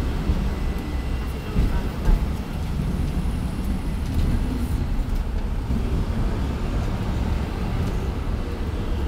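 Hong Kong double-decker tram running along its tracks, heard from on board: a steady low rumble with a brief knock about two seconds in.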